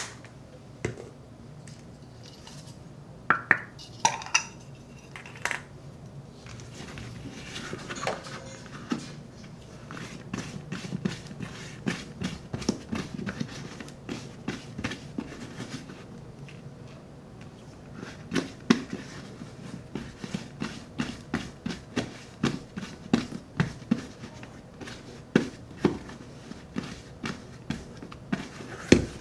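Hands working on a Red Wing 8080 boot as shoe cream is applied: soft rubbing on the leather with many small taps and clicks. A few sharper clinks of items being handled come in the first several seconds.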